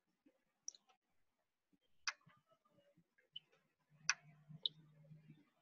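Faint, sharp computer-mouse clicks, about five of them a second or so apart, while a chart is zoomed on screen; a faint low hum joins in for the last second and a half.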